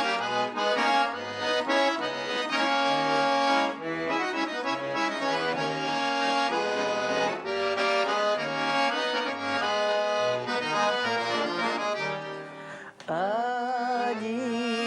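Accordion playing the introduction of a song, a melody over a rhythmic bass accompaniment. A woman's singing voice comes in near the end.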